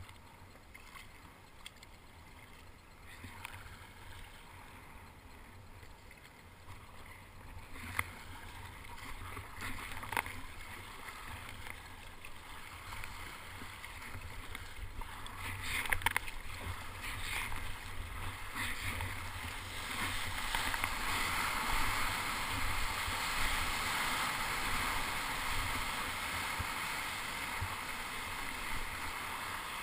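Sea kayak paddling: water slapping and splashing against the hull and paddle, with a few sharp splashes. From about twenty seconds in comes a louder, steady rush of broken surf as the kayak rides the whitewater of a wave.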